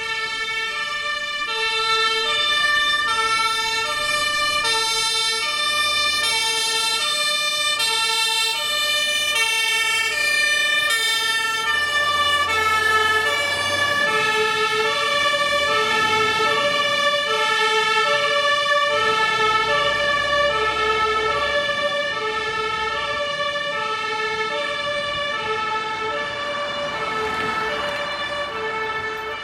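Two-tone fire engine sirens (German Martinshorn) sounding together, each stepping back and forth between a high and a low note, with a low engine rumble in the middle.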